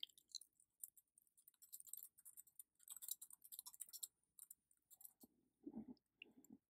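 Faint computer keyboard typing: soft, scattered key clicks.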